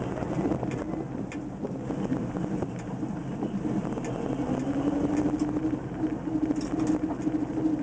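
1969 Plymouth Road Runner's 440 V8, with a Magnum cam and an Edelbrock 750 carburettor, running while the car drives, heard from inside the cabin. The engine note dips and then climbs again around the middle.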